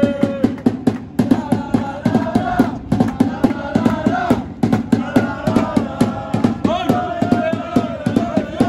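A small group of football supporters singing a chant together, loud and in unison, over a steady beat.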